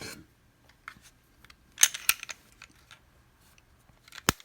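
Metal parts of a Smith & Wesson M&P 2.0 pistol handled during field stripping: a short sliding rasp with clicks about two seconds in, and one sharp click near the end.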